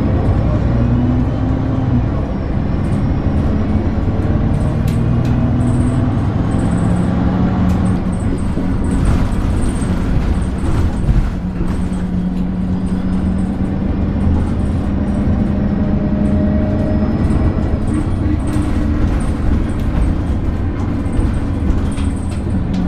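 Alexander Dennis Enviro 300 single-deck bus under way, its engine note rising and falling as it pulls away and changes speed, with scattered sharp clicks and knocks.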